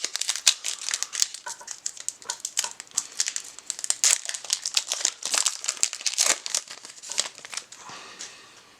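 Trading-card pack wrapper being ripped open: quick, dense crinkling and tearing of the thin foil-plastic wrapper, dying away near the end.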